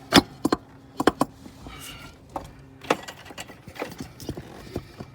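Sharp clicks and knocks as a replacement air bag is pushed and worked into place in a truck seat's suspension: a loud knock right at the start, two more about a second in, and smaller clicks after.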